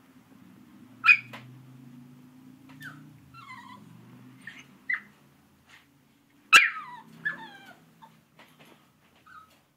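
Yorkshire terrier puppy shut in a wire crate whining and yipping to be let out: a string of short high cries, several sliding down in pitch, the loudest about six and a half seconds in. Low grumbling runs under the first four seconds and again around seven seconds.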